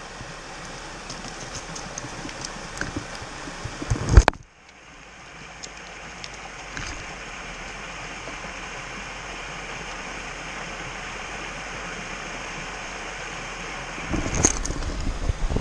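Shallow mountain stream running over stones, a steady rushing hiss of water. About four seconds in there is a loud knock as the camera is picked up and moved, and near the end come more knocks and rustling of handling.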